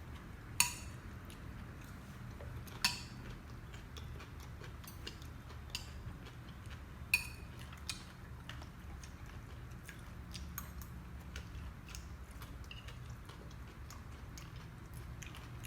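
Eating utensils clicking and tapping now and then against a dish of papaya salad while it is picked through, with three sharper clinks (about half a second in, near three seconds and near seven seconds) and fainter taps between them, over a steady low hum.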